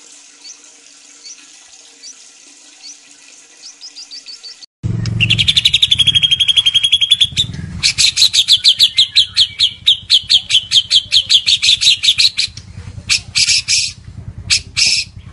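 White-rumped shama (murai batu, Medan strain) singing. Faint chirps at first, then, after an abrupt cut about five seconds in, loud trills and a fast run of sharp repeated notes, breaking into short phrases near the end.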